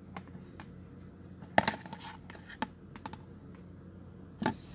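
Light clicks, taps and scrapes of hands handling a cardboard card box and a plastic card holder, with the sharpest clicks about a second and a half in and near the end.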